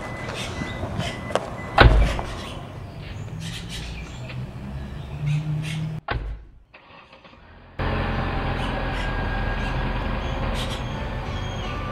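A car door slams shut once, about two seconds in, over outdoor street ambience. After a brief drop-out, a steady background with held tones sets in.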